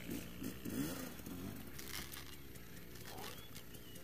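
Motorcycle engines idling, with the revs briefly rising and falling in the first second before settling to a steady idle.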